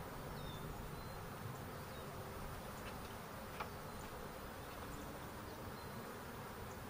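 A mass of honeybees buzzing steadily around the box and tree, a continuous drone of many wings, with one light tap about three and a half seconds in.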